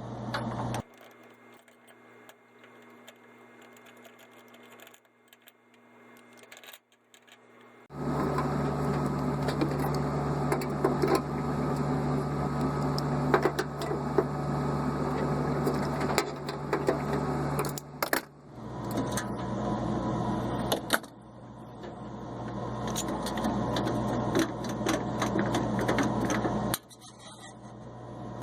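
Small electric motor running in two long spells of several seconds each, with steady hum and scattered clicks: typical of a cordless power screwdriver backing out Phillips screws from a marine propane stove's burners and panels.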